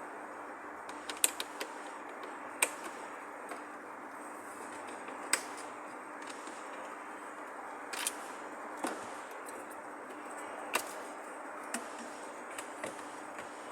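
Steady hiss with about ten sharp clicks at irregular intervals, the loudest a little over a second in.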